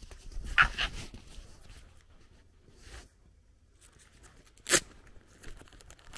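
Quiet outdoor background with a few scattered short sounds: a brief scuff about half a second in and a single sharp click a little over four and a half seconds in, the loudest sound here.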